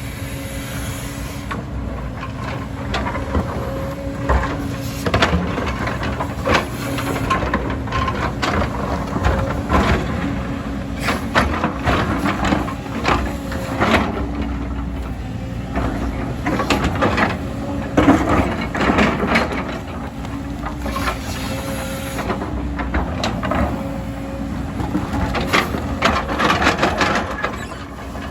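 Heavy earthmoving machinery at work: a diesel engine running steadily beneath repeated irregular metal clanks, knocks and scraping.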